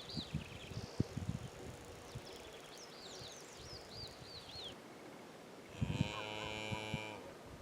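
A cow moos once for about a second, near the end. Before the moo, small birds chirp in quick, curving high whistles, with a few soft knocks in the first second and a half.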